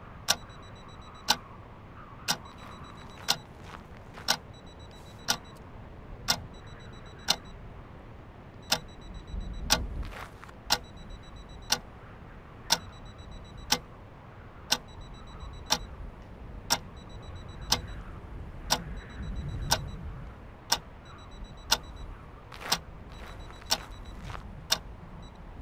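A clock ticking, one sharp tick about every second, over a low steady rumble.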